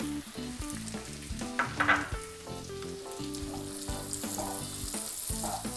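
Chopped onion frying in hot butter and oil in a kadai, a steady sizzle, with a wooden spatula stirring and knocking against the pan a few times. Soft background music plays under it.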